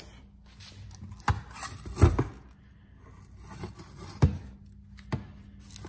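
Old Slant Six water pump being handled: four sharp knocks of the metal part, the loudest about two seconds in, over a faint steady hum.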